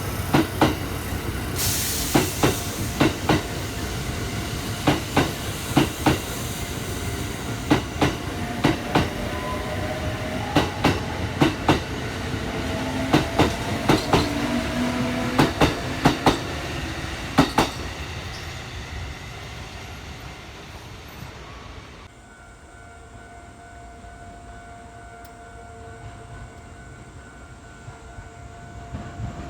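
Electric train passing, its wheels clicking over rail joints in quick pairs for about the first eighteen seconds, then the rumble fading away.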